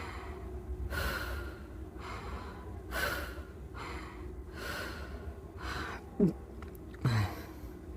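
Donkey braying: a run of wheezy, breathy calls about one a second, with two short low falling honks near the end.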